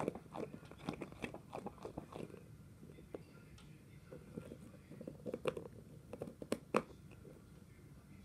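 Irregular close crackling and clicking in two flurries, the sharpest clicks about six and a half seconds in.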